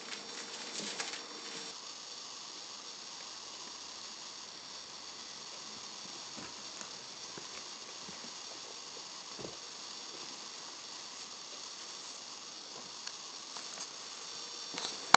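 Steady background hiss with a few faint soft thumps and rustles from two kittens play-fighting on a sofa cushion. A short burst of louder clicks and rustling comes in the first two seconds.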